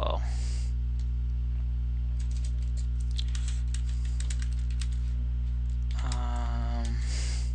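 Computer keyboard typing: a run of quick key clicks as a command is typed. A steady low hum sits under it throughout.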